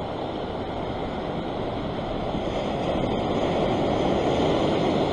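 Ocean swell surging and breaking over a sandstone rock ledge, a steady wash of surf that grows louder about three seconds in as a wave breaks white across the rocks.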